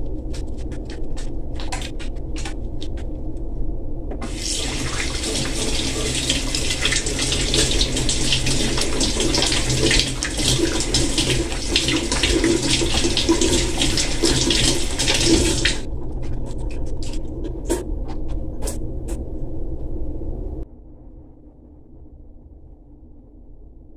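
Kitchen faucet running in a stream over hands being washed at the sink. It is turned on about four seconds in and shut off sharply about twelve seconds later. A steady low hum lies underneath, with small clicks and knocks before and after the water runs.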